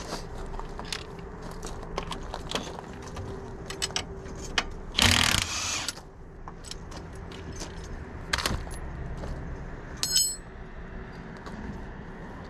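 Metal tools clicking and clinking against the front hub and axle of a Can-Am X3. About five seconds in comes a loud burst lasting about a second, and about ten seconds in a sharp, ringing metal clink.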